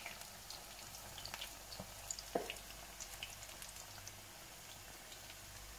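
Gram-flour-battered cod pakoras deep-frying in hot oil: a steady sizzle full of small crackles and pops, with one louder knock about two and a half seconds in.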